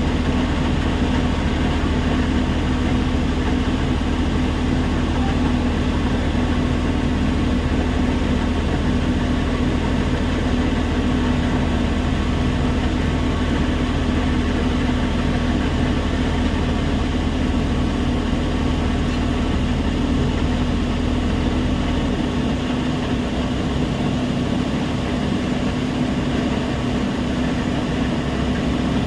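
Heavy machinery running steadily with a constant hum; the deepest rumble drops away about 22 seconds in.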